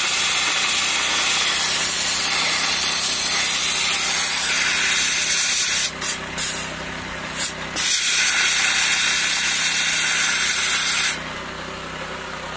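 Dry ice blaster nozzle blasting a spoked wire wheel: a loud, steady hiss that cuts out briefly a few times around the middle and stops about eleven seconds in. An engine runs steadily underneath and is left on its own after the blast stops.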